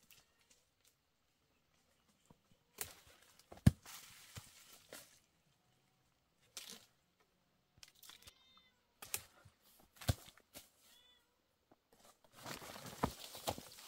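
A cat meowing: one short high meow about eight seconds in and a fainter one near eleven seconds, amid rustling and clicks, with a single sharp knock a little under four seconds in as the loudest sound.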